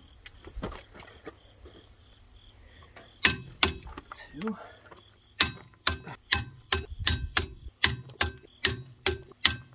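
Ratcheting torque wrench working a track loader's final-drive sprocket bolts: two sharp clicks a little after three seconds in, then a regular run of sharp ratchet clicks, about two and a half a second.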